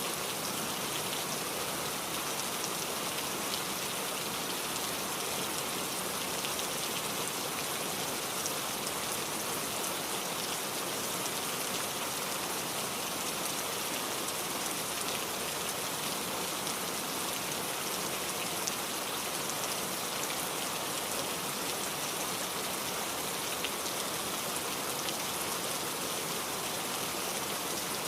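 Heavy rain falling steadily: a dense, even hiss with scattered drops ticking through it.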